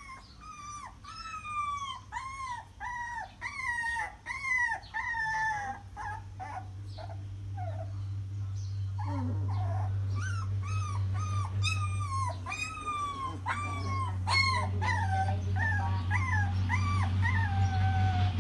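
Young puppies crying: a string of high-pitched whimpering cries, each arching and then falling in pitch, about two a second, in two runs with a short lull near the middle. A low steady hum grows louder underneath from about a third of the way in.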